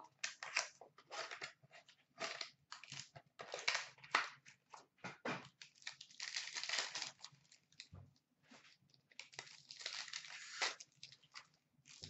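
Foil wrappers of Upper Deck SP Game Used hockey card packs crinkling and tearing as they are opened by hand, a string of short, uneven crackles.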